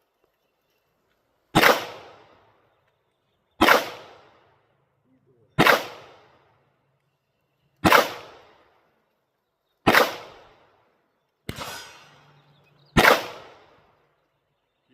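Canik Combat 9mm pistol fired in slow, steady single shots. There are six loud reports about two seconds apart, each with a short fading echo, and one fainter bang between the last two.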